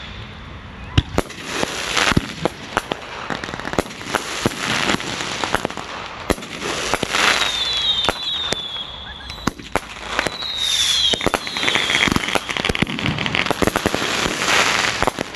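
Blue Angels aerial firework by Miracle Fireworks firing a long series of shots: sharp launch thumps and bursts with crackling and fizzing. In the second half, two clusters of short high whistling tones slide slightly downward.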